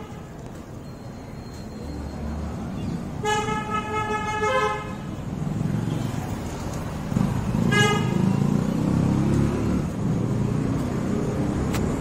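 Street traffic with vehicle horns honking: a run of toots a few seconds in and one short toot near eight seconds, over a steady traffic rumble that grows louder in the second half.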